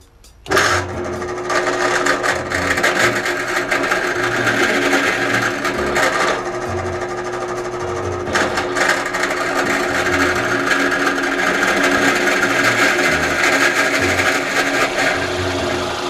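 Benchtop drill press motor switched on about half a second in and running steadily, its 1-inch paddle bit boring into a red oak ball.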